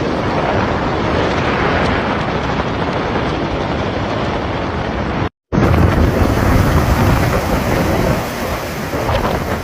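Hurricane-force wind and heavy rain battering the microphone: a loud, continuous rumbling roar of wind noise. About five seconds in it cuts abruptly to another recording of the same storm, where the low rumble is heavier.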